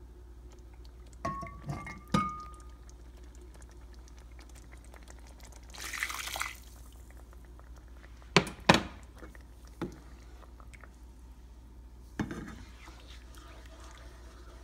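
Shrimp stock being poured into a pan of Creole sauce, with a short splash about six seconds in. Cookware clinks and knocks against the pan throughout: a ringing clink about a second in, two sharp knocks about eight and a half seconds in that are the loudest sounds, and single knocks later.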